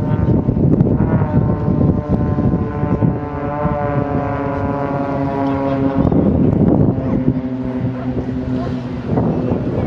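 Propeller-driven Extra 300 aerobatic aircraft droning in flight, a steady many-toned engine and propeller drone whose pitch shifts slightly as they move, with heavy wind buffeting on the microphone.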